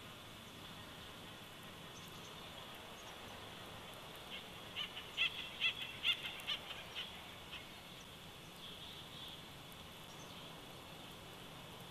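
A bird calling a run of about a dozen sharp, high notes at about four or five a second, lasting some three seconds, over a steady background hiss.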